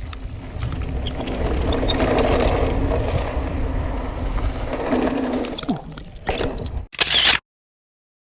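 Mountain bike rolling fast down a dirt trail: steady wind and tyre rumble on the microphone with scattered rattles and knocks of the bike over the ground. A few louder bangs come about six to seven seconds in, then the sound cuts off abruptly.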